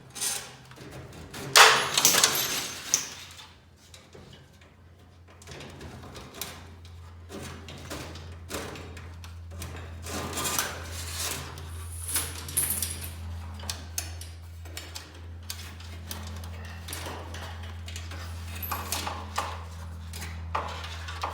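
Clanks, clicks and rattles of metal hardware as garage door extension springs and their safety cables are taken down, with a loud clattering rattle about two seconds in. A low steady hum starts about six seconds in and continues.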